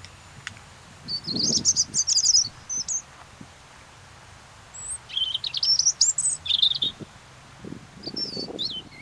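European robin singing: three short, high, warbling phrases, each separated by a pause of a second or two.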